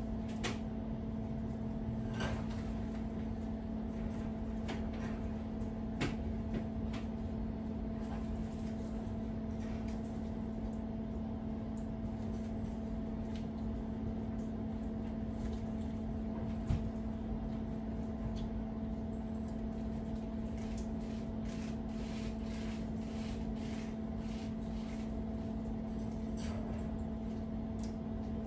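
A steady low hum from a running kitchen appliance, with faint scattered clicks and taps from hands pulling cooked chicken meat off the bone over a pot.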